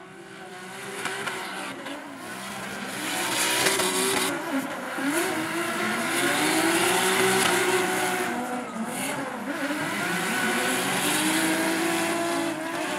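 Two drift cars sliding in tandem, their engines revving hard with the pitch sweeping up and down over and over, over the hiss and squeal of spinning, smoking tyres. The sound builds over the first few seconds and stays loud.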